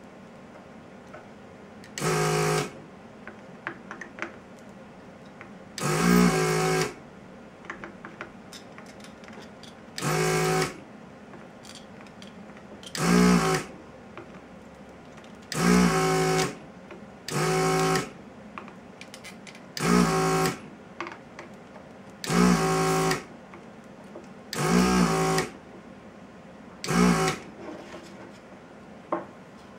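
Vacuum pump of a Hakko desoldering gun (an 802 handpiece converted to an 809) running in short bursts as the trigger is pulled on each joint, sucking molten solder out of a single-sided circuit board. There are about ten bursts of motor hum, each about a second long, every two to three seconds.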